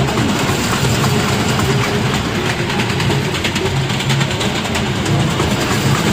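Small kiddie-ride train running round its circular steel track: a steady low rumble from the wheels and drive, with rapid clicking and clattering as the cars roll over the rails.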